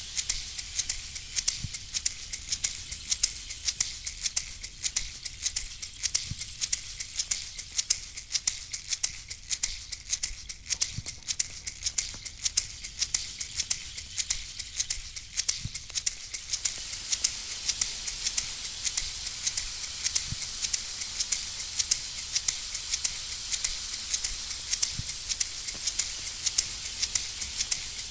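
Shamanic shaker rattle shaken in a steady, rapid rhythm, with a soft low drum beat about every four to five seconds.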